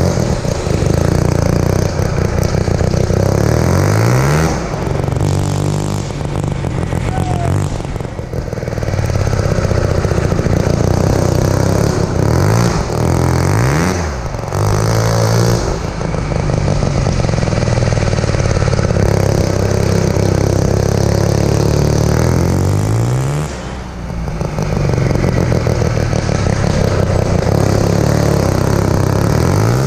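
1975 Hercules W2000's single-rotor Wankel engine driving a go-kart at full throttle. It revs hard, and several times its pitch drops with a brief dip in level, then climbs again as it pulls through the gears.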